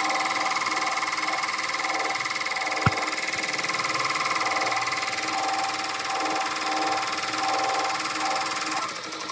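Ricoma MT1501 multi-needle embroidery machine running at speed, sewing a running-stitch outline: a steady mechanical whir with rapid, even stitching. A single knock about three seconds in.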